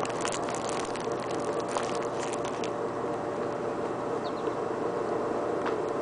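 Air conditioner and electric fan running with a steady hum and rush. A flurry of light clicks and rattles comes in the first two or three seconds.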